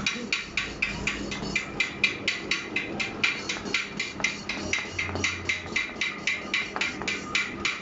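Quick, even tapping of a hammer on metal, about five light strikes a second, as in engine repair work.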